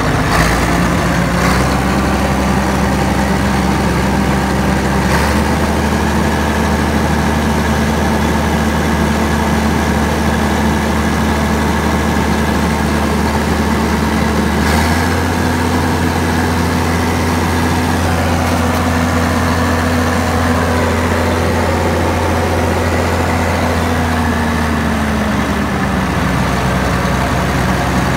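Cat D6 bulldozer's six-cylinder diesel engine running steadily after a glow-plug cold start. Its speed is raised in several steps, each with a short click of the throttle lever, and then brought back down near the end.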